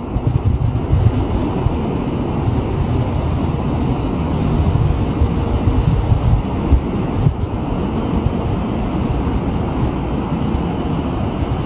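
Electric commuter train running at a station: a steady low rumble, with brief faint high-pitched tones near the start, about six seconds in, and near the end.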